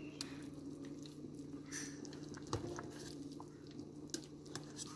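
A spoon skimming scum off a pot of boiling chicken broth: small wet sounds and scattered light clicks over a low steady hum.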